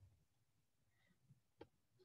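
Near silence, with a single faint computer-mouse click about one and a half seconds in.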